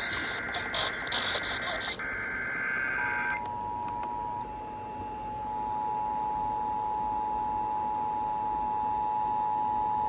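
Emergency Alert System tones: the screeching two-pitch SAME digital header bursts end about three seconds in, then the steady dual-tone EAS attention signal (853 and 960 Hz) sounds, marking the start of an alert message.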